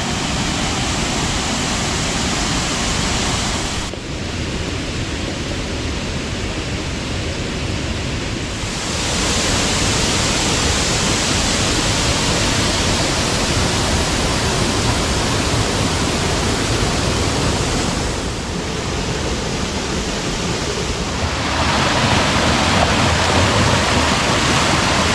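Water pouring over the Shady Lake Dam spillway: a steady rushing of falling water, shifting in level and brightness abruptly a few times.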